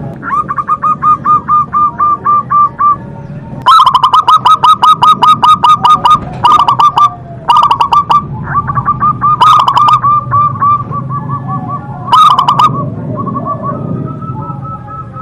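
Zebra doves (perkutut) cooing: rapid runs of short, evenly spaced notes in several loud bursts, with series at times overlapping.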